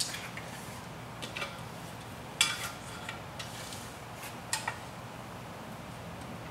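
A few short light clicks and clatters from handling a tape measure and the shutter's base stop angle while marking centre points, the loudest about two and a half seconds in, over a steady low hum.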